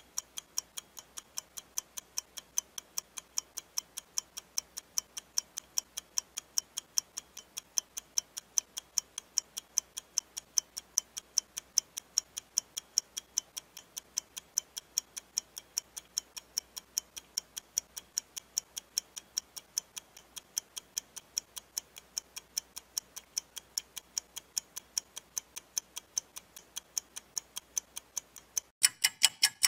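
A clock ticking steadily, about four sharp ticks a second, over near-silence with no room noise. Near the end the ticks turn louder with a hiss underneath.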